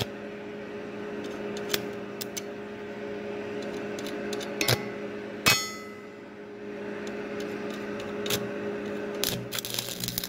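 Stick welding arc crackling and sputtering over a steady hum, catching in short runs; the arc is hard to strike and keep going. A sharp snap comes about halfway through, and the crackle thickens near the end.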